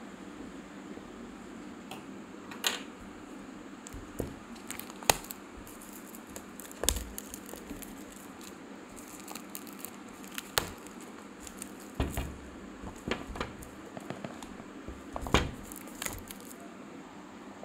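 Clear plastic wrap on a small product box being handled and torn open: irregular crinkles, clicks and sharp crackles over a steady background hiss.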